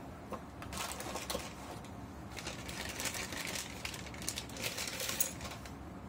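Unpacking noises as a pneumatic crimper is taken out of its cardboard box: packaging rustles in irregular bursts, with a few small clicks and knocks of the tool being handled.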